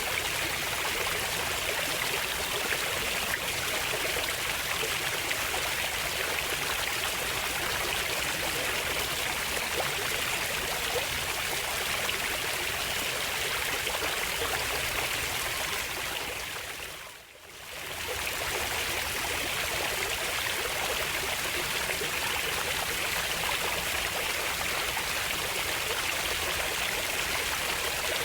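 Flowing water, a steady even rush like a stream. A little past the middle it fades down and swells back up again within about two seconds.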